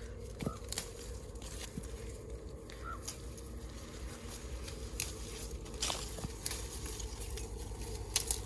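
Pink Lady apple-tree leaves and twigs rustling by hand, with scattered small clicks and snaps as young apples are pulled off the branch during fruit thinning, over a low steady hum.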